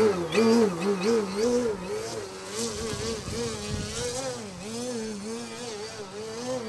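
SunnySky electric motor and propeller of an Edge 540 3D aerobatic RC plane, buzzing in a nose-up hover, its pitch rising and falling about twice a second as the throttle is worked to hold the plane in the air.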